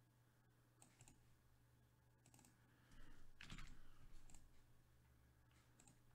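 Faint, scattered clicking at a computer, a few separate clicks spread out, with a brief louder noise about three seconds in.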